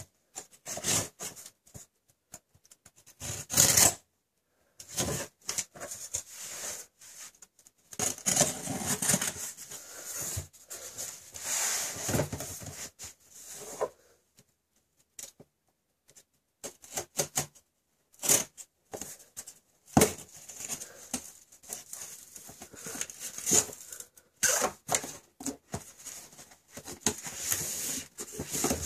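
Cardboard shipping box being opened by hand: packing tape cut and torn with a small metal tool, then cardboard flaps scraped and pulled open, in irregular bursts of scraping, tearing and clicking with short pauses.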